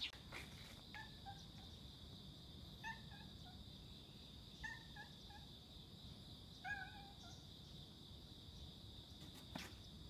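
Faint short meows from an orange tabby cat, in little clusters of two or three about every two seconds, over a steady high-pitched whine.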